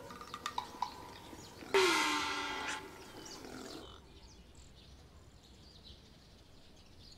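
Donkey braying: one harsh call about two seconds in that falls in pitch and lasts about a second.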